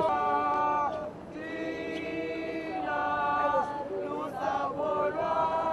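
Several voices singing together, unaccompanied, in long held notes that change pitch about once a second.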